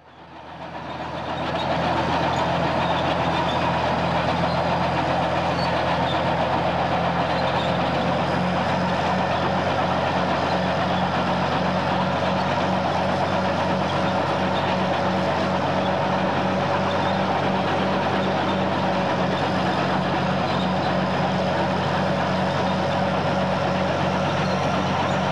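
A large vehicle engine running steadily with a deep, even drone. It fades in over the first couple of seconds and then holds level.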